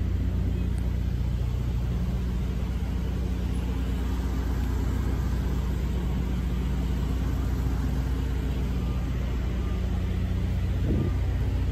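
Semi-truck diesel engine running steadily as the tractor-trailer rolls slowly, driven to build air pressure because the trailer's sliding tandem axles would not release.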